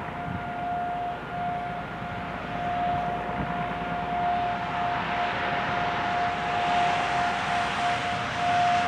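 Federal Signal 2001-SRN rotating outdoor warning siren sounding the Alert signal: one steady-pitched tone held without rising or falling, growing louder toward the end.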